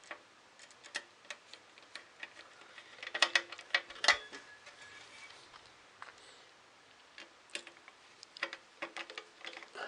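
Small 3D printer kit parts clicking and tapping together as they are handled and fitted, a run of irregular sharp clicks with busier clusters about three seconds in and near the end, a few ringing briefly.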